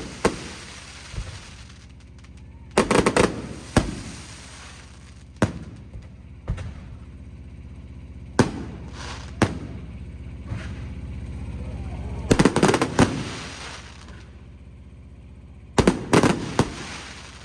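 Aerial fireworks going off: single sharp bangs every second or so, and three dense flurries of rapid crackling, about three seconds in, about twelve seconds in and near the end.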